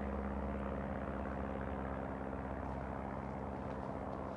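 Steady low machine drone with several held low tones, unchanging throughout.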